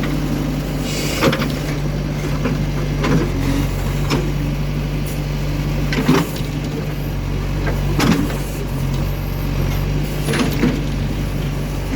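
Backhoe loader's diesel engine running steadily at a constant speed, with sharp knocks every one to two seconds as it works.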